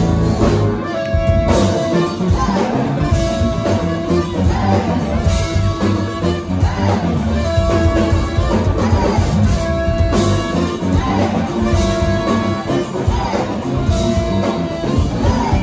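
Live brass-funk band playing: trumpet and saxophones over electric guitar, bass and drums, with a short horn riff repeating about every two seconds and a singer's voice.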